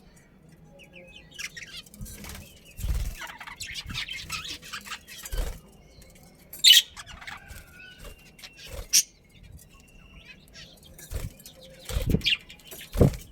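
Budgerigars chirping and chattering in short bursts, with two sharp loud chirps in the middle, and wing flutters and dull thumps from the birds moving about, several of them near the end.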